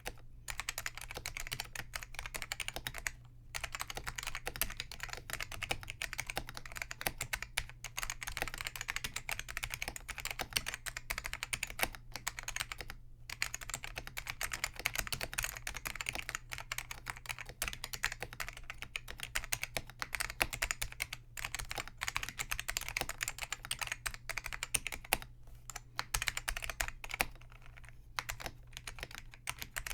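Continuous fast typing on a Focus FK-2001 keyboard with Hua-Jie T1 Alps-clone switches whose click leaves have been removed: rapid keystroke clacks with no switch click, broken by a few short pauses.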